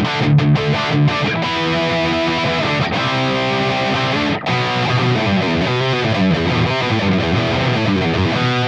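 Maybach Lester 59 electric guitar played through a distorted high-gain amp sound: choppy chords at first, then held notes, then a fast run of changing notes from about halfway through.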